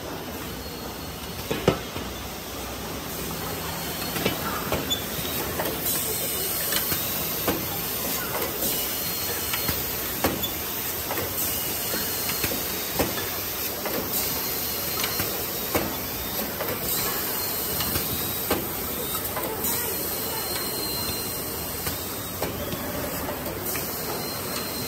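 Automatic cube-wrapping and carton film-wrapping packaging machinery running: a steady mechanical noise with sharp clacks of the mechanism, roughly one a second.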